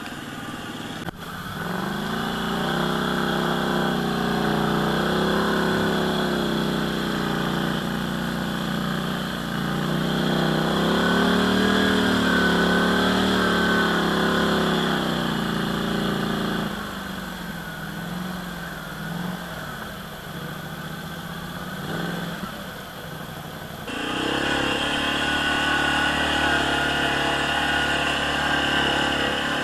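ATV engine running under throttle on a trail ride, its pitch wavering up and down. It eases off about two-thirds of the way through, then comes back up abruptly near the end.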